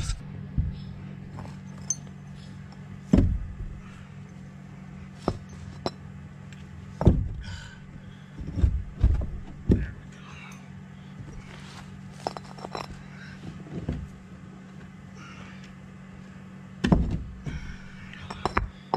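Brick pavers being handled and set, with soil worked by a hand tool: about ten scattered knocks and scrapes over a steady low hum.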